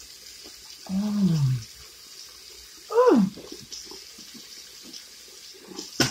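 Tap running into a bathroom sink, with two short gagging noises from a woman brushing her tongue, about a second and three seconds in, each falling in pitch.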